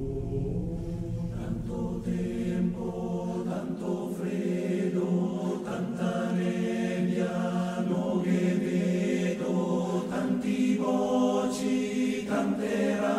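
Choir singing slow, sustained chords that shift every second or so, with no clear words; a low rumble underneath fades out in the first few seconds.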